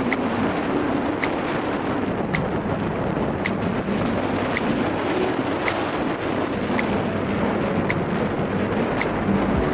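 Loud steady rushing noise like wind buffeting the microphone over a low rumble, with a faint sharp tick about once a second.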